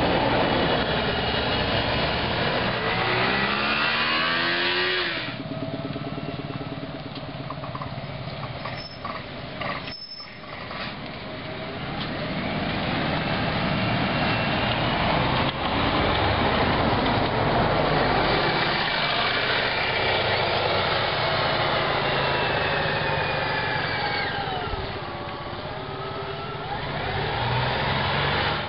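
City buses driving past and pulling away: engine running with a whine that climbs as a bus accelerates early on and drops away again near the end, over steady tyre and road noise.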